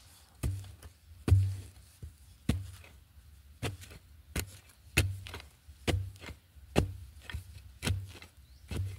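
A long-handled metal digging spade chopping into dry, root-filled soil to dig out a wild yam tuber: about ten strikes, a little more than one a second, each a dull thud with a gritty scrape, the loudest about a second in.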